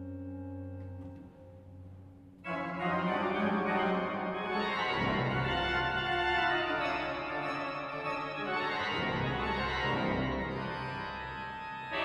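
Pipe organ playing. A soft held chord sounds first, then about two and a half seconds in a loud full chord breaks in suddenly, and the music goes on densely with heavy bass notes.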